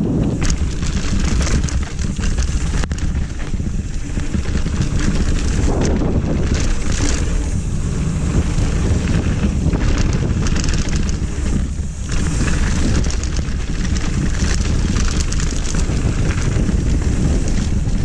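Wind buffeting a helmet-mounted action camera's microphone during a fast mountain-bike descent on a dirt trail. Tyres rumble and the bike knocks and rattles over the rough ground throughout.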